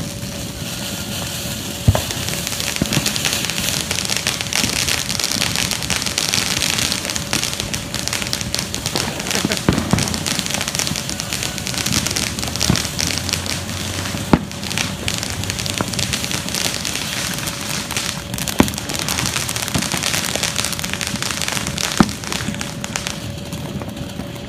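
Black Cat 1.21 Gigawatts fountain firework burning, a steady hiss of spraying sparks with dense crackling. Sharp pops stand out from it now and then, the first about two seconds in.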